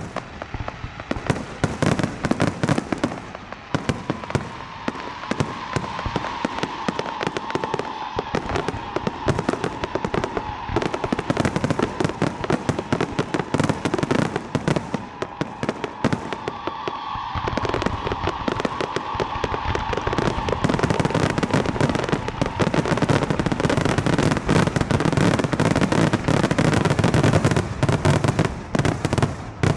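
Fireworks grand finale: a rapid, unbroken barrage of booms and crackling bursts, growing denser and louder through the second half.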